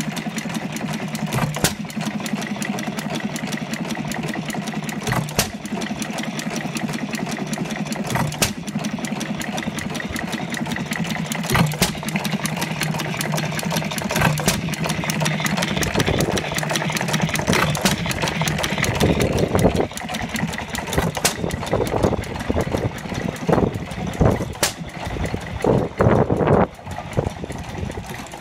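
1910 International Harvester Famous 3 hp vertical single-cylinder hit-and-miss engine running. It gives a sharp bang about every three seconds and coasts on its flywheels in between, the hit-and-miss way of governing. In the later part the beats come more often and less evenly.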